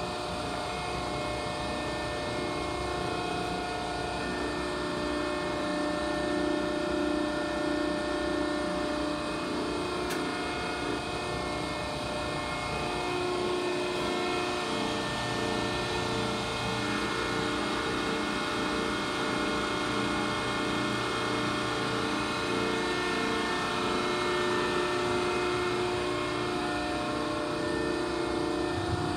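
Cincinnati 175-ton hydraulic press brake running: a steady mechanical hum with several steady tones from its hydraulic pump and drive motor, with no strokes or impacts.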